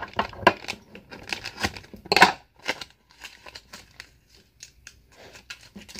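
Blue plastic mailer bag being picked at and torn open by hand: scattered short crinkles and snaps, with a louder rip about two seconds in, then only sparse faint rustles.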